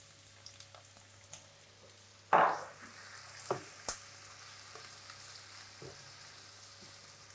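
Tofu cubes and carrot strips frying and sizzling in a pan while stirred with a wooden spoon. A sudden loud burst comes about two seconds in, after which the sizzle is louder, and the spoon knocks against the pan a couple of times.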